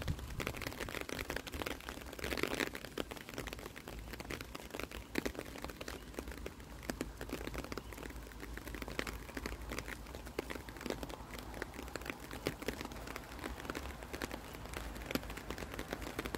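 Light rain falling, with many separate drops ticking unevenly on hard surfaces over a faint hiss.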